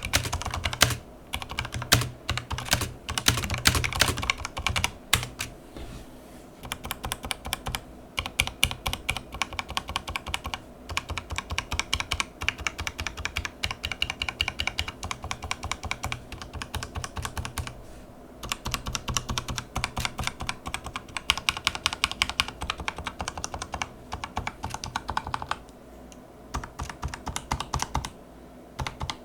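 Typing test on a Razer BlackWidow mechanical keyboard fitted with Razer Phantom keycaps and new stabilizers: rapid key clicks in runs, broken by a few short pauses.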